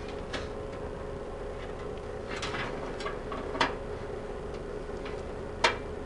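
A handful of light, irregular clicks and ticks over a steady hum, the sound of handling inside an open desktop computer case.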